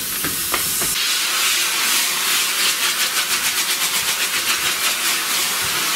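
Sugar and potassium nitrate rocket propellant burning in a casing made from an old capacitor shell: a strong, steady hiss of exhaust that swells about a second in and pulses rapidly through the middle of the burn.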